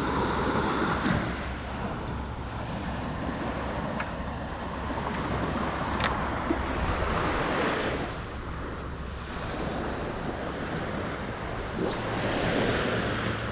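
Surf washing onto a beach, swelling and easing, with wind buffeting the microphone. A few faint clicks stand out.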